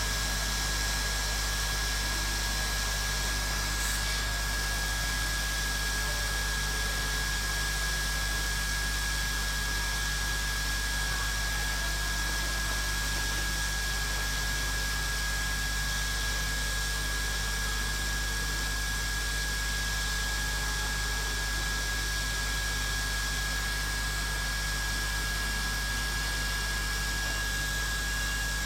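Hot air rework station blowing steadily from a straight nozzle, an even rushing hiss with a thin constant whine, heating and softening the underfill glue around a chip on a phone logic board.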